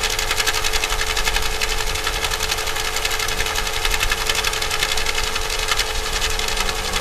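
Underwater hydrophone recording of a motorboat's engine and propeller: a fast, even pulsing over a low hum.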